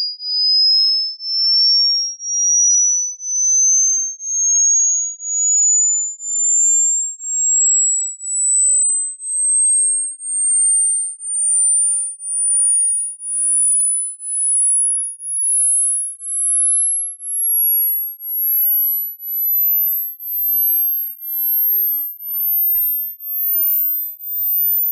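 Hearing-test pure tones: a string of beeps about one a second, each a step higher in pitch than the last, climbing from a high whistle to a very thin, piercing tone near the top of human hearing. These are the frequency-test tones that older ears stop hearing as the pitch rises.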